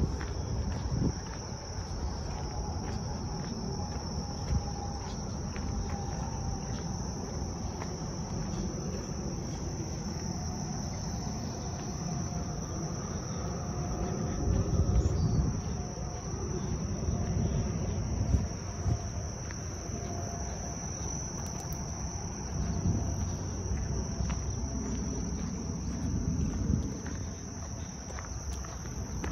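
A steady, unbroken high-pitched insect chorus, with uneven low rumbling noise underneath that grows louder around the middle.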